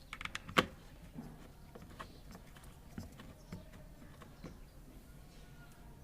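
Sharp clicks and knocks of tools and metal parts being handled during washing machine repair work: a quick run of clicks right at the start, one loud knock about half a second in, then scattered softer taps.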